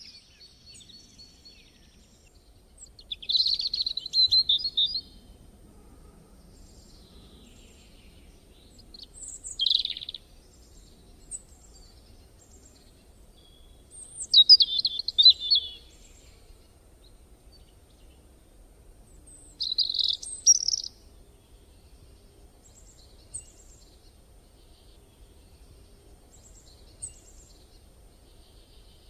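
A bird singing short bursts of rapid chirps, four phrases about five seconds apart, over faint outdoor background noise.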